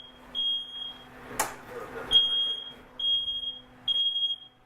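Electronic alarm beeping: a high single-pitch beep about half a second long, repeating roughly once a second. A sharp click comes about a second and a half in.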